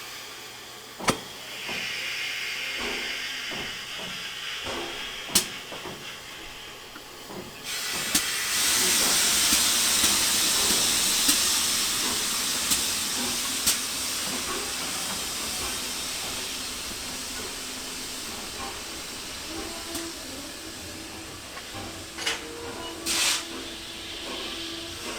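Steam locomotive 60163 Tornado venting steam with a hiss. About eight seconds in, a much louder, full hiss starts abruptly and then slowly eases, with a few sharp clicks along the way.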